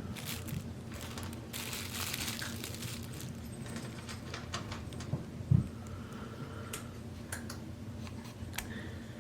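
Handling noise from a plastic bag wrapped over a camera: crinkling rustles and scattered clicks, with one short, low thump about five and a half seconds in.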